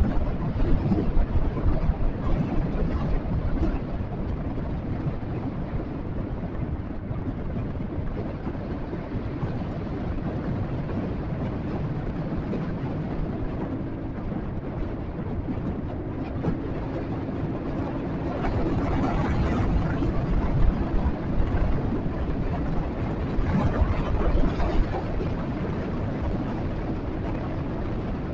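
Motorcycle on the move, heard as a steady low wind rumble on the microphone over the engine note, with two louder surges in the second half.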